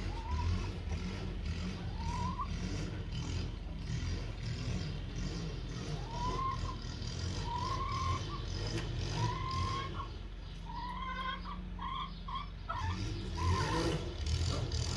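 A bird giving short rising chirps, one every second or two at first and then several in quick succession later on, over a steady low rumble.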